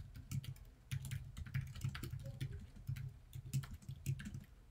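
Typing on a computer keyboard: a quick, uneven run of keystrokes.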